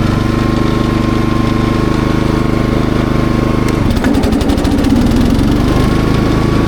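Cox Stockman ride-on mower engine running under throttle, a steady, loud engine note that wavers and changes about four seconds in before settling again.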